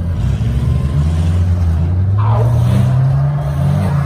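Engines of several compact pickup trucks running and revving, their low drone rising and falling in pitch.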